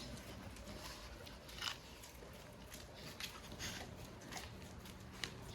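Large dogs moving about close by: scattered light clicks, scuffs and mouth noises at irregular intervals over a low rumble, with one sharper click near the end.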